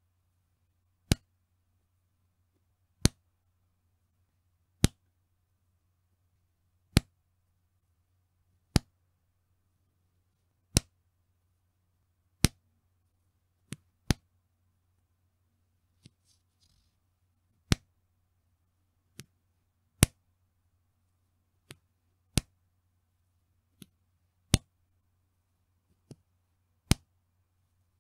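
A bra's elastic band being snapped, each release a sharp slap, repeating about every two seconds with a few softer snaps in between.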